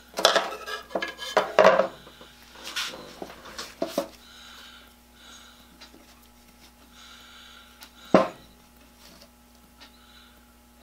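Steel scissors clattering on a workbench, then the crinkle and rub of masking tape being pressed and smoothed onto a cast-iron drill gear wheel. Sharp clicks and rustles come thick in the first two seconds, then sparser, with one loud sharp crackle about eight seconds in.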